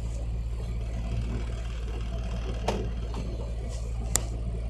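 A boat's engine running steadily, a low drone, with two short sharp knocks, one a little past halfway and a louder one near the end.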